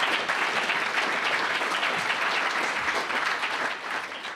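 Audience applauding: a steady clatter of many hands clapping, fading out near the end.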